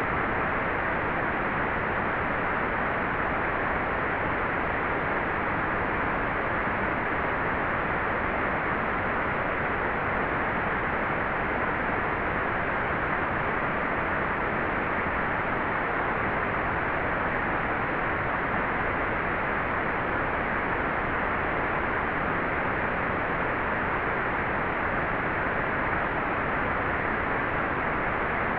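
Hairdryer running steadily, an even, unchanging rush of air used as white noise.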